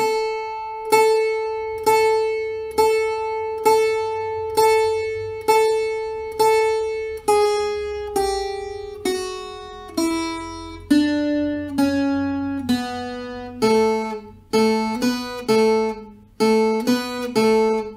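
Viola caipira, a ten-string Brazilian guitar strung in five double courses, playing a solo slowly one note at a time. The same note is picked eight times about a second apart, then the line steps down, and the second half moves in quicker notes on the lower courses.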